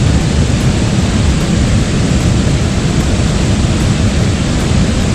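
Steady, loud rush of whitewater rapids, with a low rumble of wind on the microphone.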